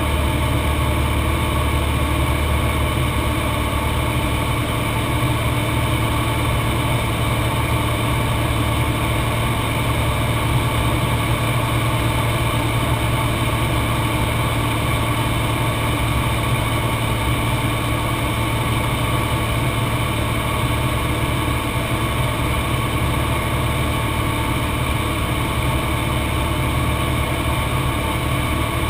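Cessna 182's piston engine and propeller running at a steady setting, a constant drone heard from inside the cockpit.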